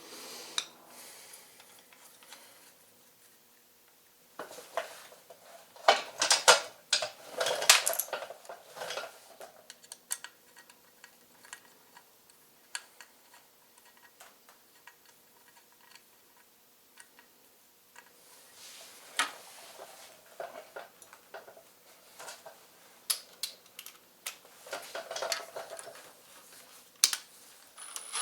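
Small metal motorcycle parts and hand tools clinking and rattling in irregular bursts during work on a rear brake pedal assembly, busiest a few seconds in and again near the end.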